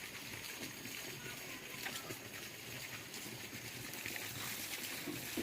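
Faint trickling water, with a few light clicks and a short knock near the end.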